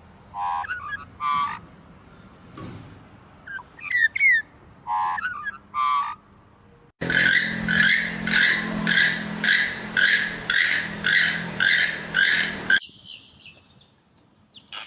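Several different birds calling in turn: short pitched calls in pairs and bunches, then a rhythmic series of calls about two a second lasting some six seconds that starts and stops abruptly, then a faint high trill.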